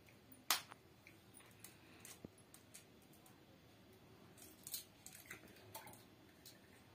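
Eggshell struck with a knife and cracked open over a steel tumbler: one sharp click about half a second in, then scattered light taps and crackles of shell being pried apart.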